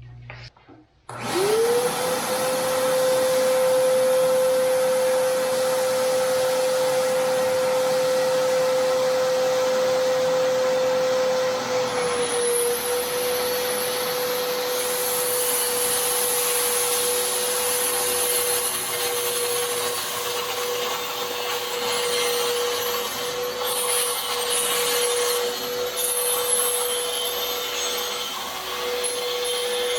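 An electric power tool motor starts about a second in, spins up to a steady whine, and runs without a break under a loud rushing noise, with a slight dip in pitch partway through.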